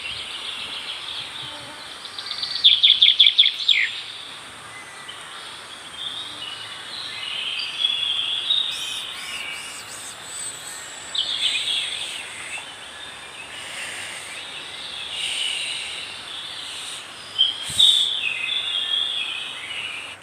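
Forest ambience with several songbirds singing in overlapping phrases, the loudest a rapid series of quick notes about two and a half seconds in, over a faint steady high insect drone.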